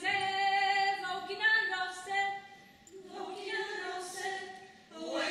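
Women's folk choir singing unaccompanied in long held phrases, with a short breath pause a little past halfway before the next phrase.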